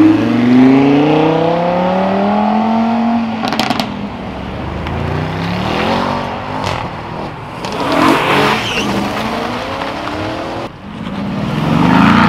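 Performance cars accelerating away one after another. First a Lamborghini Huracán's V10 revs hard, rising in pitch for about three seconds. Then an Audi estate pulls away, and near the end a Mercedes-AMG GT's V8 swells up as it revs past.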